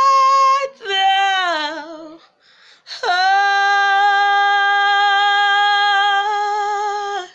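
A woman singing a hymn unaccompanied, with no clear words: a held high note, a short falling phrase with vibrato, a breath, then one long held note of about four seconds that stops near the end.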